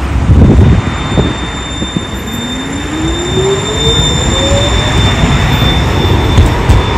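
Tram running close by on its line, a loud rumble of wheels on rail with a few low knocks in the first two seconds. Its electric traction drive gives a whine that rises steadily in pitch as it accelerates.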